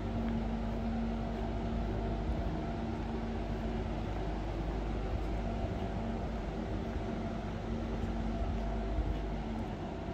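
A steady mechanical hum over a low rumble that fades near the end.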